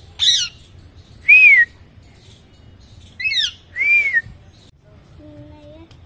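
Alexandrine parakeet calling: two pairs of calls, each a quick falling squawk followed by a short whistle that rises and falls.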